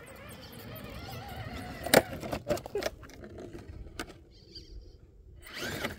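Radio-controlled scale crawler truck clambering over rocks: a few sharp knocks and clatter about two to three seconds in, one more knock near four seconds, and a short rustle near the end.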